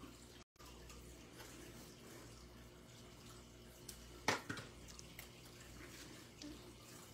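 Faint room hum with soft handling of paper strips on a craft table. About four seconds in comes a short cluster of sharp clicks as a plastic Stampin' Seal tape runner is handled and set down on the table.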